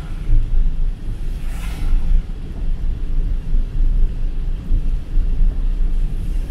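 Car driving on a flooded road in a downpour, heard from inside the car: a steady low road rumble under a hiss of rain and tyre spray. A louder swish of spray swells and fades about two seconds in.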